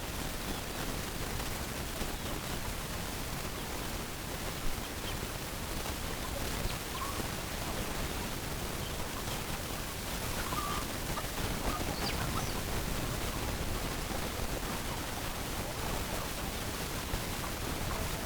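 Steady hiss of background noise with a few faint, brief chicken calls, mostly in the second half.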